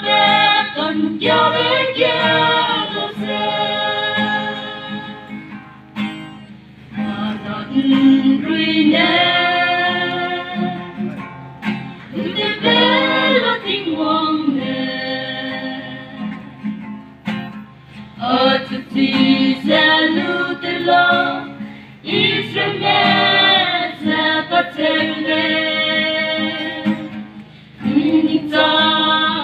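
A group of voices singing a Christian hymn with guitar accompaniment, in phrases of about five seconds with short breaks between them.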